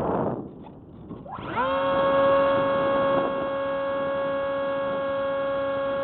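Electric motor and propeller of a Hubsan SpyHawk RC plane, heard from the onboard camera. After a brief rush of wind that fades in the first half second, the motor spins up about a second in with a quick rising whine, then holds a steady high whine at full throttle.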